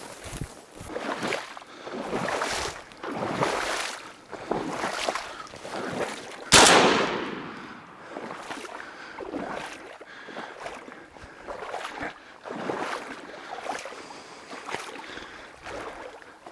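Wading through shallow marsh water and dry reeds: repeated swishing splashes, one every second or so. A single shotgun shot rings out about six and a half seconds in and dies away over a second or more.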